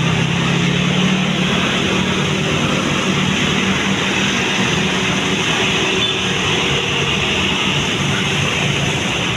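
Large tour bus engine running with road and tyre noise as it drives by. A steady low hum is strongest in the first couple of seconds and then eases off.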